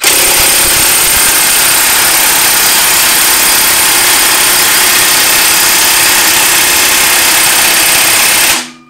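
Air-powered impact wrench hammering without a break for about eight and a half seconds on the crankshaft pulley bolt of a Honda H22A4 engine, stopping with the bolt still not loosened: it is too tight to break free.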